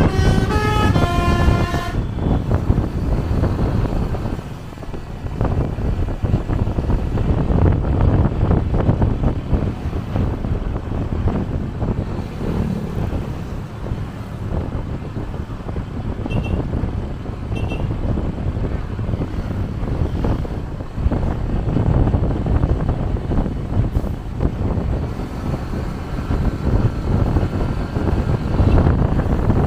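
A Basuri telolet bus horn plays a stepped multi-note melody that ends about two seconds in. Then comes a steady rumble of engine and road noise, and a faint horn tune returns near the end.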